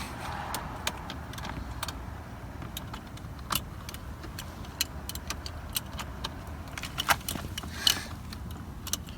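Scattered light clicks and small metallic clinks of hand tools and small parts being handled while fitting a steering wheel, over a low steady hum. A few of the clicks are sharper, about three and a half seconds in and again near the end.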